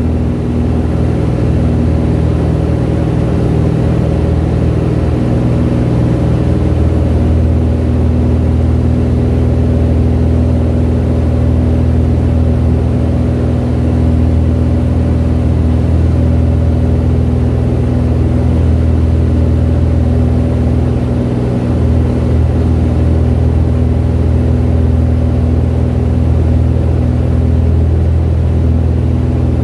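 Piston engine and propeller of a high-wing light aircraft running steadily at takeoff power, heard from inside the cabin during the takeoff run and climb-out. The drone's tone changes slightly about seven seconds in.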